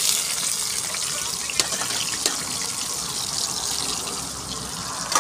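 Chopped onion, garlic and green chilli frying in hot oil in a steel kadai: a steady sizzle with a few sharp pops.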